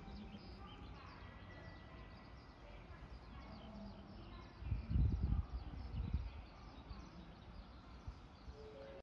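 Small birds chirping over quiet ambience, with a low rumble about five seconds in that lasts a second or two.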